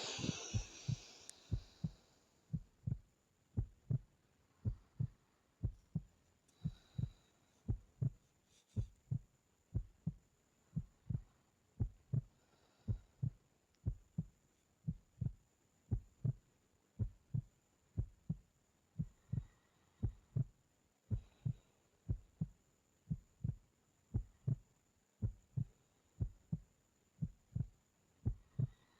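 Steady heartbeat: soft low thumps about twice a second, evenly spaced. A loud breathy exhale comes right at the start and fades over about two seconds.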